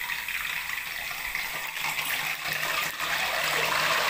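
Potato chip slices deep-frying in a kadhai of hot oil, sizzling harder and growing louder as a few drops of salt water hit the oil.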